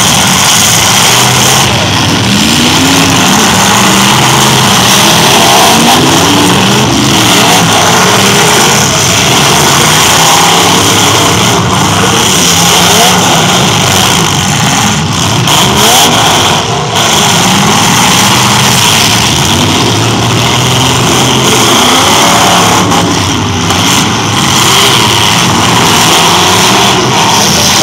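Several demolition derby pickup trucks' engines revving at once, loud and continuous, their engine notes rising and falling over one another.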